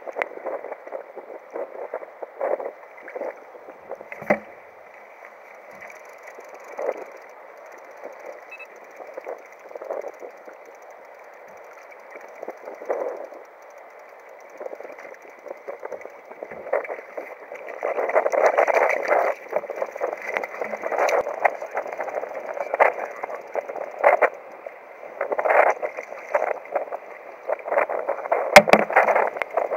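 Choppy sea water splashing and slapping against a kayak's hull in irregular bursts, busier and louder in the second half.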